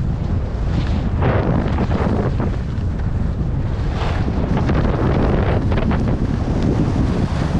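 Wind buffeting the microphone of a skier's camera during a downhill run, a steady low rumble, with the skis scraping and hissing over tracked snow in several surges, about a second in, around four seconds and near six seconds.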